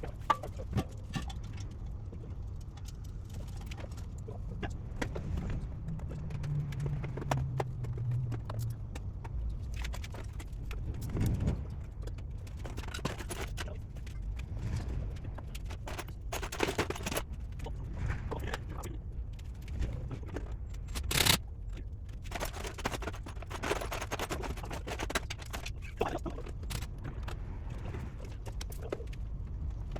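Workshop work on a car: scattered clicks, clinks and knocks of tools and parts being handled, over a low steady hum, with one louder knock about two-thirds of the way through.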